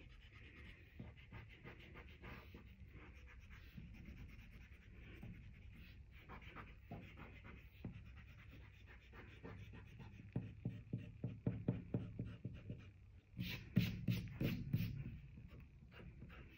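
Pencil eraser rubbing back and forth on drawing paper in many quick, faint strokes, with harder, louder strokes from about ten seconds in.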